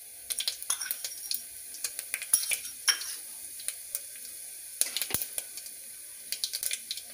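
Mustard seeds, cumin and curry leaves frying in hot ghee in a pressure cooker: a steady sizzle with many sharp, irregular pops as the seeds crackle. This is the tempering (tadka) stage, the ghee hot enough to make the seeds splutter.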